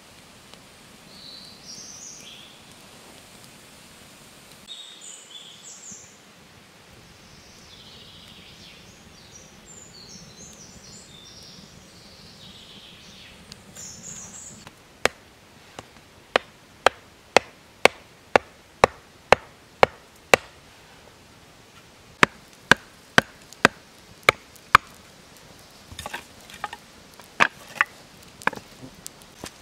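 Faint bird chirps over quiet forest background, then two runs of loud, sharp wooden knocks, about two a second, from sticks being worked with a tool for a stick-frame table, with a short pause between the runs. Lighter, uneven knocks and clatter of sticks follow near the end.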